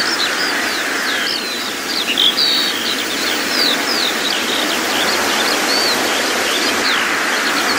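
Outdoor ambience of several small birds chirping and singing in quick, short notes that glide up and down, over a steady rushing background.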